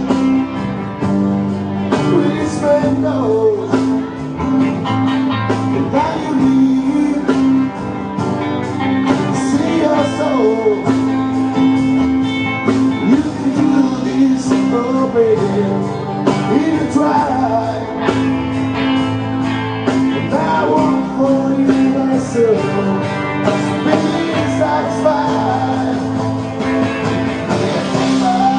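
Live rock band playing: electric guitar, bass and drums, with a lead line bending up and down in pitch over steady held low notes and a regular drum beat.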